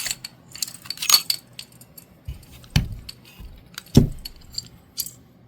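Metal clicks and clinks of a Springfield Armory Ronin 1911 pistol being taken apart as the steel slide is slid off the frame, with two louder knocks about three and four seconds in.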